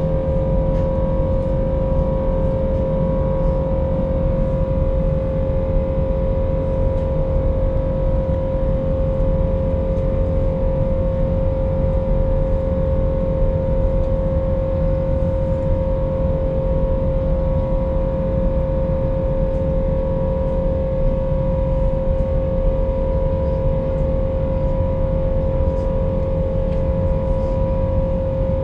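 Steady airliner cabin noise in flight: a constant low rush of engine and air noise with a steady mid-pitched tone running through it.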